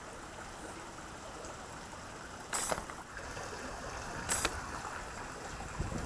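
Steady outdoor background noise, broken twice by a short sharp scuff or rustle, about a second and a half apart.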